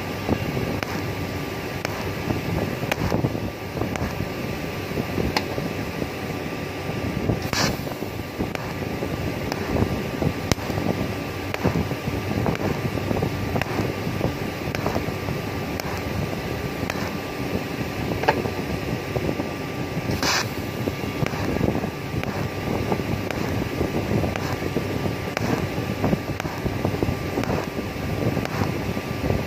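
TIG welding arc running on a thin stainless-steel pipe joint: a steady hissing buzz with a faint steady tone. Two sharp crackles break through, about a quarter and two-thirds of the way in.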